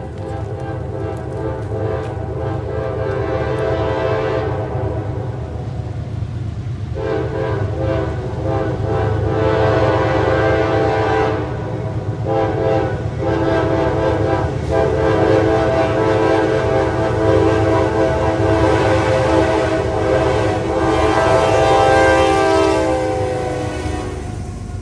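Freight diesel locomotive's multi-tone air horn sounding a long sequence of blasts, with a few short breaks about halfway through, over the steady low rumble of the train. The horn chord falls slightly in pitch just before it stops near the end.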